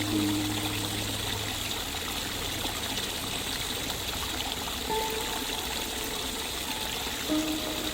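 Steady running water, an even, continuous trickling and rushing.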